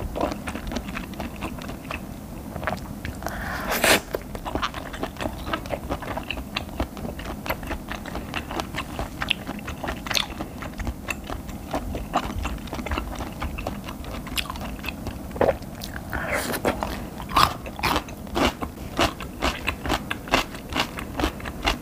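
Close-miked chewing of food: a steady run of wet mouth clicks and crunches, denser and louder over the last few seconds, with one louder crunch about four seconds in.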